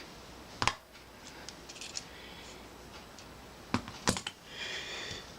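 Small tools and wires being handled at a soldering bench: a few sharp clicks and taps, lighter ticks between them, and a brief soft hiss near the end.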